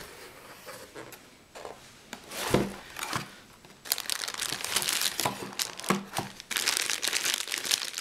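Plastic packaging bags crinkling as cables in them are handled and pulled out of a cardboard box compartment, the crinkling dense and continuous from about halfway through. A few light knocks and rustles of cardboard come before it.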